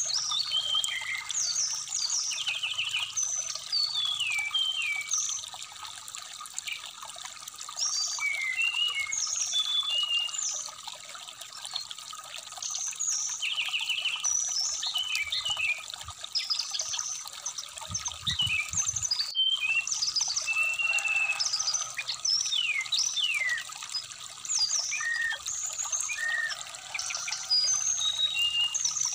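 Brown-chested jungle flycatcher (SRDC) singing a run of short chirps, whistles and quick trills over the steady trickle of a shallow stream.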